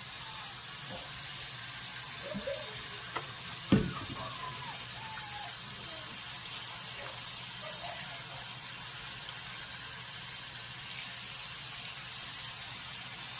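Water sloshing in a sink as a husky puppy is bathed and rubbed by hand, with one sharp knock a little under four seconds in.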